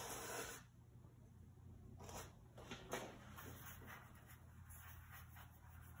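Paintbrush strokes of oil paint on a stretched canvas: a faint, soft brushing rub that ends about half a second in, then a few short strokes between two and three seconds in.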